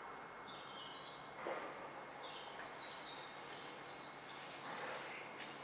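Small birds chirping faintly, with short high calls scattered over a steady outdoor hiss.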